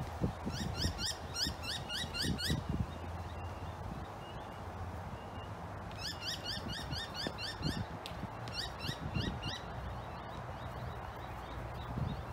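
A bird singing quick runs of rising whistled notes, about five a second, in three bursts. Under it are soft, irregular low knocks of a hard plastic egg-shaped dog toy being nosed and pawed over grass, with a couple of louder thuds a few seconds in.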